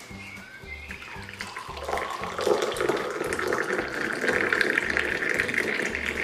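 Mint tea poured from height out of a metal Moroccan teapot into a small glass tea glass, the thin stream splashing into the liquid. The pour grows louder about two seconds in and stops suddenly at the end.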